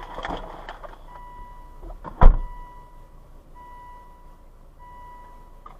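A steady high electronic tone, like a car's warning chime, sounds on and on with a few brief breaks. About two seconds in there is a single loud thump, the loudest sound here.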